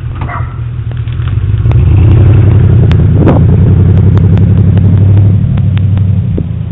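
A motor vehicle's engine running close by: a low hum that swells about two seconds in, holds for a few seconds and then fades, with a few sharp clicks over it.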